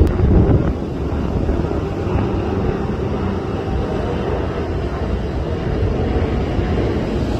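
Boeing 747-400 freighter's four jet engines passing overhead on approach, landing gear down: a steady low rumble.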